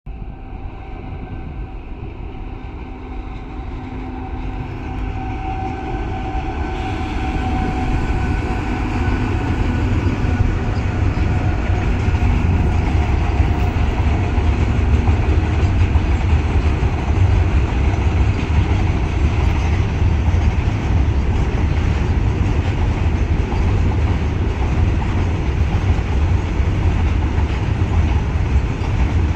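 Electric locomotive and freight train passing at track side. A low rumble grows louder over the first eight seconds or so while a steady whine fades out, then the heavy, continuous rumble of the goods wagons rolling by holds.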